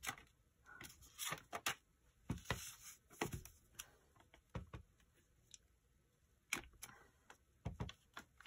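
Scattered light taps and clicks of a clear acrylic stamp block being pressed onto, lifted off and set down on a paper envelope on a cutting mat, with a brief shuffle of paper being shifted.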